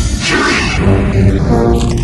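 Dramatic background music, with a rushing energy-blast sound effect about half a second in.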